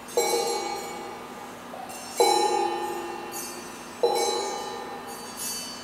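Metal hardware objects such as hinges, brackets and bolts, blown by fans and striking each other, picked up through piezo contact microphones. About every two seconds there is a sudden clanging strike that rings with several bell-like tones and fades away. A softer strike comes near the end.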